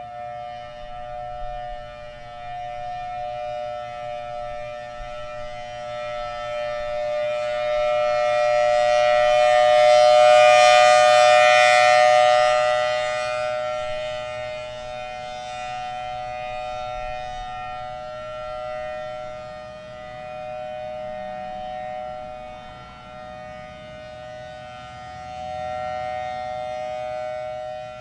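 Federal Signal Thunderbolt outdoor warning siren sounding a steady two-note tone at constant pitch, swelling loud about ten seconds in and fading as its rotating head turns, then swelling a little again near the end. It sounds worn and short of air to the chopper, which the recordist suspects comes from the head not being properly bolted to the flange.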